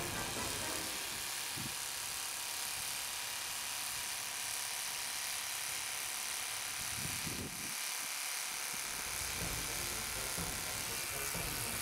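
Bosch 11255VSR rotary hammer running steadily in hammer mode, pounding an 8-foot copper ground rod down into the soil. It eases off briefly about seven and a half seconds in.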